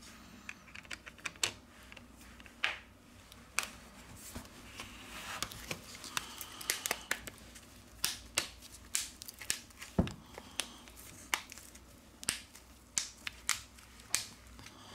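Small sharp clicks and taps of hand tools and plastic and metal phone parts being handled and pressed together while a Samsung A20e smartphone is reassembled. The clicks come irregularly, with a soft scratchy rustle a few seconds in and one louder knock about ten seconds in.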